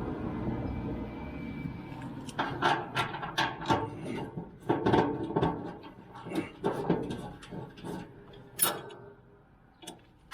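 Metal and plastic grill parts clicking and knocking as the propane fuel gauge is fitted onto a Weber Spirit gas grill's frame: an irregular run of sharp knocks starting about two seconds in, after a low rumble.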